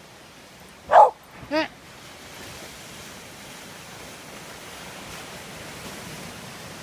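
A dog barks twice in quick succession about a second in, the first the louder. A steady wash of surf from waves breaking on the shore follows.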